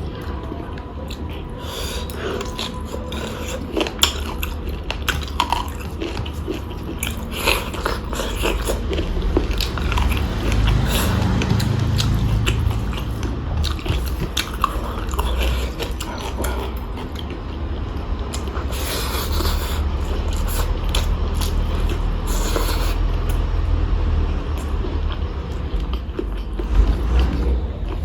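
Close-miked chewing and biting of someone eating, with many small clicks throughout.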